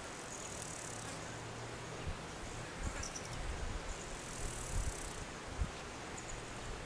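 Insects chirring in high-pitched trills that come and go, over a faint steady low hum and a few soft low thumps.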